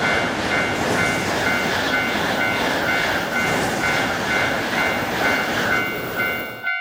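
Japanese level crossing alarm bell ringing in a steady pattern about twice a second while a train passes with a continuous rushing rumble. The train noise cuts off suddenly near the end.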